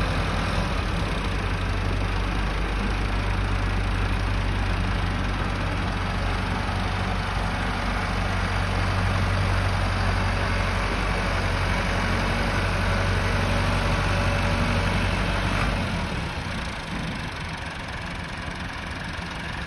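Diesel engine of a Massey Ferguson 385 tractor running steadily with a low, even throb while it levels ground. Near the end the engine sound drops and becomes quieter and thinner.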